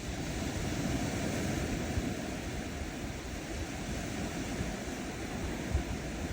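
Ocean surf washing onto a sandy shore: a steady rushing wash of small waves that swells slightly about a second in.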